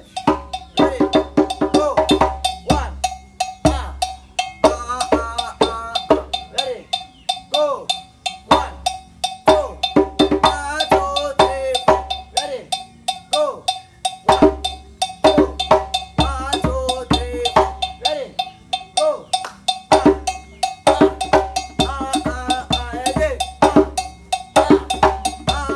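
Live hand drumming in a fast, steady rhythm, with voices singing over it off and on.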